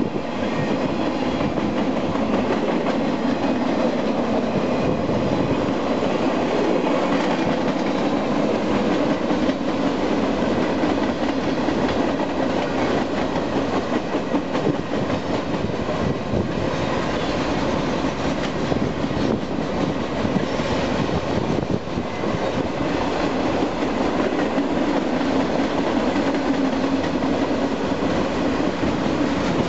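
Empty intermodal cars of a Union Pacific freight train rolling past at speed: a steady clatter of steel wheels on the rails.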